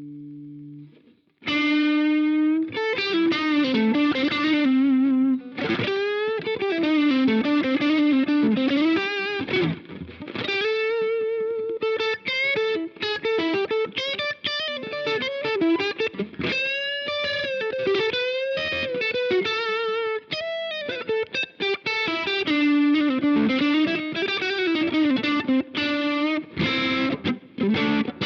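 Electric guitar played through an iSet Dumbler, a Dumble-style overdrive pedal, with light overdrive: a lead line full of string bends and vibrato. It starts after a brief pause about a second and a half in.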